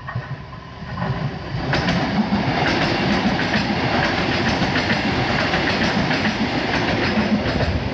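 KRL KfW i9000 electric multiple unit passing close by. Its rumble rises over the first two seconds, then runs steady with repeated clacks of the wheels over the rail joints.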